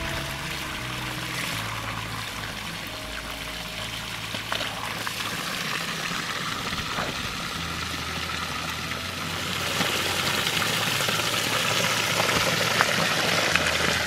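Mountain spring water pouring steadily, getting louder about ten seconds in.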